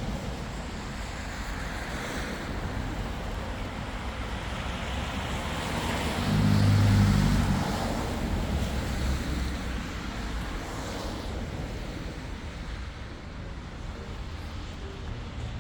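City street traffic: a steady wash of passing cars, with one vehicle going by close about six seconds in, its low engine hum the loudest sound.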